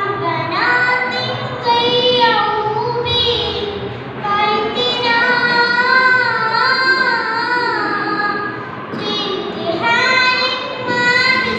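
A young girl singing an Arabic poem (padyam) as a melodic recitation, in phrases with long wavering held notes and short pauses for breath between lines.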